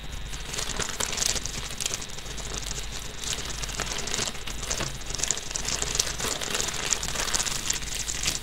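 Newspaper rustling and crinkling as it is folded and pressed flat by hand, with irregular crackles throughout.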